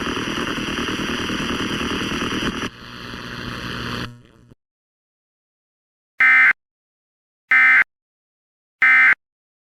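A steady rushing noise that drops in level about two and a half seconds in and fades away around four and a half seconds. After a pause come three short, harsh data bursts about 1.3 s apart: the Emergency Alert System's SAME end-of-message (EOM) code, which signals the end of the alert.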